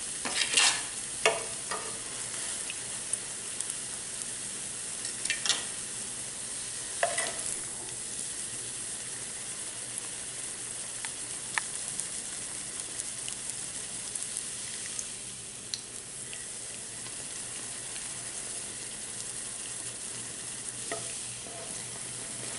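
Gram-flour-battered bread pakoda shallow-frying in a little oil in a non-stick pan, a steady sizzle. A steel spatula knocks and scrapes against the pan as the piece is turned onto its edges: a cluster of clicks in the first couple of seconds, then a few single ones.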